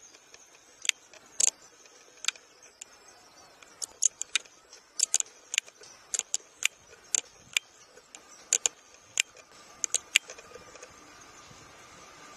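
A series of sharp, irregular clicks, roughly two a second. Near the end the faint, rising running noise of the approaching CC 206 diesel-electric locomotive comes in.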